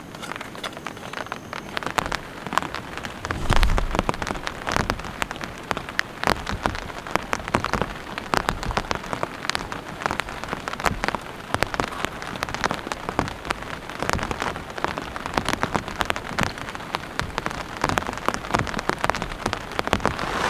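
Heavy rain with big drops falling, heard as dense, irregular pattering taps on nearby surfaces. There is a brief low thump about three and a half seconds in.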